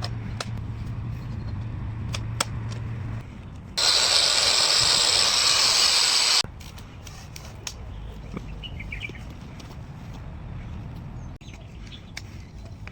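Angle grinder: a steady low hum, then a loud hissing grinding noise for about two and a half seconds that starts and stops abruptly, then quieter running noise with scattered clicks.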